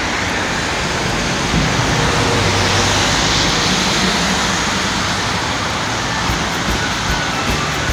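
Road traffic noise, with a vehicle passing close by around the middle and then fading.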